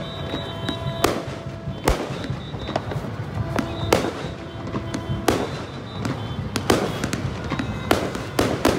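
Aerial fireworks shells bursting overhead: sharp bangs at irregular intervals, roughly one a second, some coming in quick pairs.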